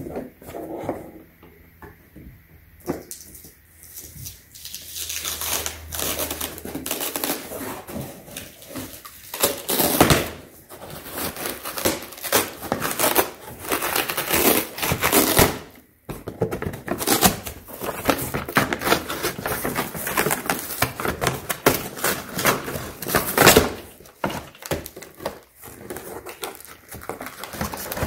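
Long corrugated cardboard box being torn open by hand: after a few quieter seconds of handling, a long run of ripping, crunching and crackling cardboard from about four seconds in.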